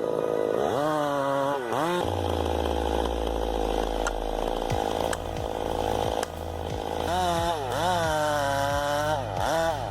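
Chainsaw engine revving up and down, then running at a steady high pitch through the cut, then revving and dropping again near the end.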